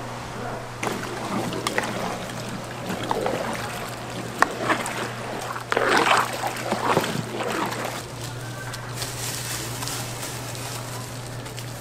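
Food being cooked at a street-food stall: scattered clinks and knocks of utensils on metal, with a louder wet splashing stretch about six seconds in, over a steady low hum.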